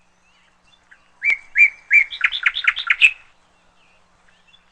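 A songbird singing: three clear whistled notes, then a quick run of about six notes, stopping about three seconds in.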